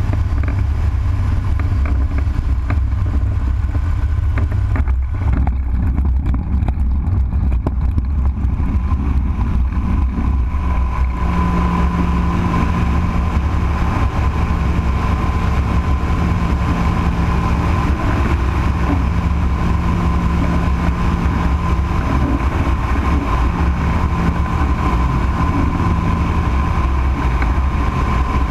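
Rotax 912 flat-four engine of a P&M Quantum flexwing microlight, heard from the airframe during a touch-and-go. It runs at lower power over the runway, and about eleven seconds in is opened up to takeoff power for the climb-out, where a steady higher whine joins the drone.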